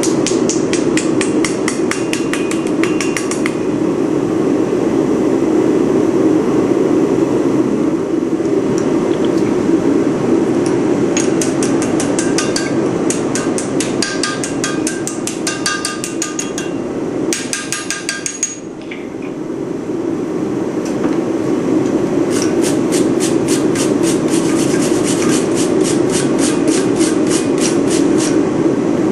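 Blacksmith's hammer striking steel on an anvil in rapid runs of about five blows a second, with pauses between the runs, while a leaf is forged. A steady low roar runs underneath and dips briefly about two-thirds of the way in.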